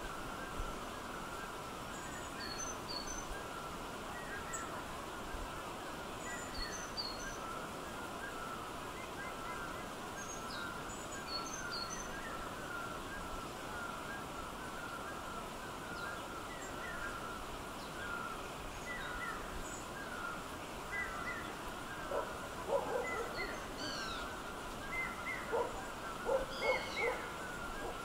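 Birds calling over a steady background hiss. Short chirps run throughout, with occasional thin high notes. About three-quarters of the way in, louder, lower notes begin, coming in quick groups.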